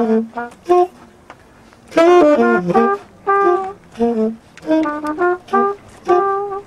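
Tenor saxophone and trumpet playing jazz together in short, broken phrases with brief gaps between them, the two horns trading and overlapping notes; a denser, louder run comes about two seconds in.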